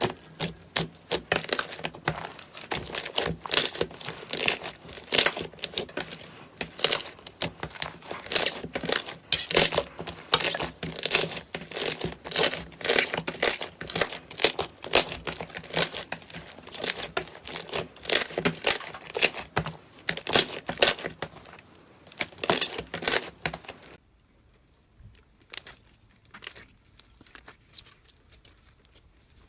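Slime being squeezed and kneaded by hand, giving dense crackling and popping clicks that stop about 24 seconds in, leaving only a few faint clicks.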